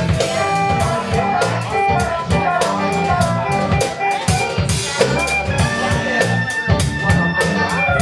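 Live funk band playing: drum kit with a busy beat, electric bass, guitar and a wind player on saxophone or flute. One long high note is held for about two seconds near the end.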